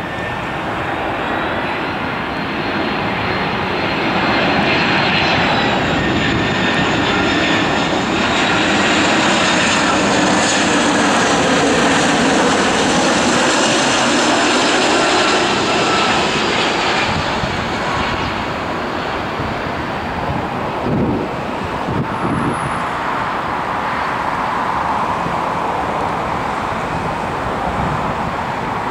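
Airbus A320's twin jet engines on final approach: a broad rushing jet noise with a high whine that grows louder, the whine dropping in pitch about five seconds in as the airliner draws near. Loudest midway, then easing off slightly as it touches down near the end.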